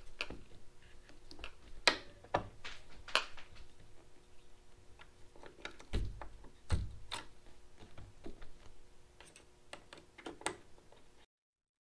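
Scattered clicks, taps and light knocks as a roof rack crossbar's foot is fitted onto the side rail and worked with a screwdriver, with two duller thumps about six seconds in, over a faint steady hum. The sound cuts off abruptly near the end.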